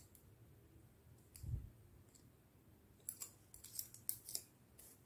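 Faint handling of plastic ballpoint pen barrels while yarn is threaded through them. There is a soft bump about a second and a half in, then a quick run of light plastic clicks and ticks from about three seconds in.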